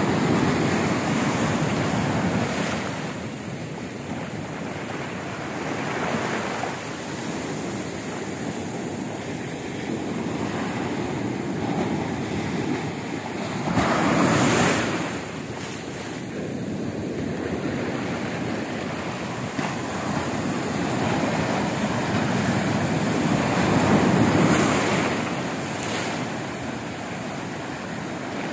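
Indian Ocean surf breaking close by at the shoreline, a continuous rush of water that swells and ebbs as each wave breaks and washes in. The loudest surges come at the start, about halfway through, and again near the end.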